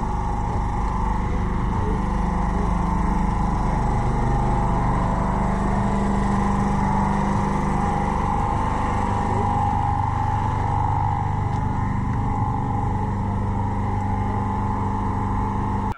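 A steady motor hum: a low drone with a higher held tone above it, running evenly without pauses.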